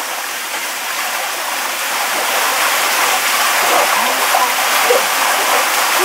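Waterfall pouring steadily, an even rush of falling water that grows a little louder about two seconds in.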